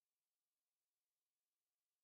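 Silence: the soundtrack carries no audible sound.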